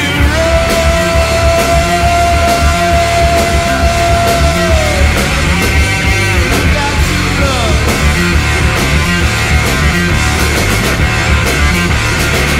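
Loud stoner rock band playing an instrumental passage, with a heavy low end and a steady beat. A long held high note slides down about five seconds in.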